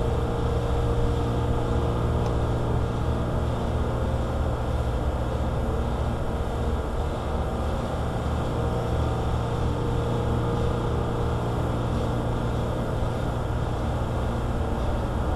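Equalizer Raptor cordless windshield cut-out winder running steadily, its motor winding cutting line through the urethane to free the glass.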